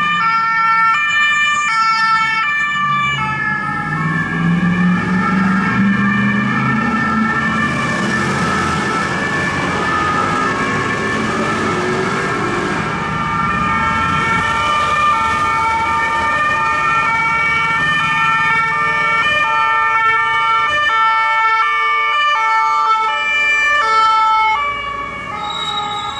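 Police cars' two-tone sirens alternating between a high and a low note, each held about half a second, at times two sirens sounding together out of step. Car engines and city traffic run underneath.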